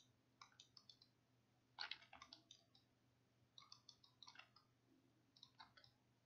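Faint clicking of a computer mouse and keyboard, in four short clusters of quick clicks, as the Alt key is held and the mouse buttons are pressed.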